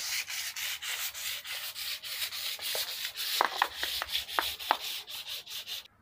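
Rhythmic scratchy rubbing, several strokes a second, with a few short high squeaks about halfway through.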